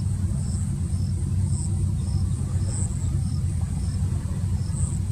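Fishing boat's inboard engine running steadily, a low, even rumble, with faint high ticks repeating evenly a little under twice a second.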